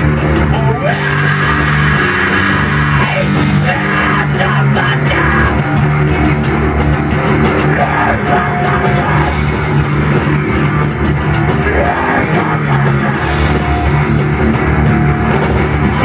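Heavy metal band playing live in a small rehearsal room: distorted electric guitar over a drum kit, loud and continuous.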